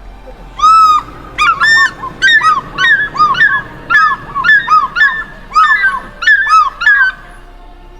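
A bird calling loudly in a rapid series of about fifteen short calls, each rising and falling in pitch, over some six seconds, over faint background music.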